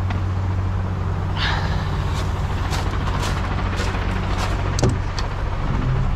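Heavy truck diesel engine idling steadily. Scattered sharp metallic clicks and knocks, a short hiss of air just over a second in, and a dull thump near the end.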